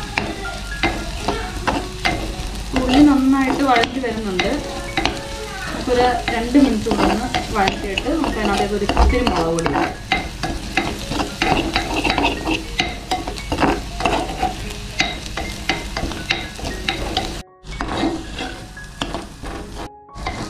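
Shallots sizzling as they sauté in oil in a pan, with a spatula stirring and scraping against the pan in a steady run of quick clicks. The sound cuts out briefly twice near the end.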